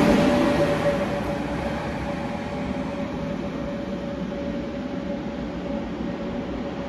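SJ X2000 high-speed train passing close and then receding: the loud rolling noise of the power car going by fades over the first two seconds, leaving a steadier rumble with a steady whine held throughout.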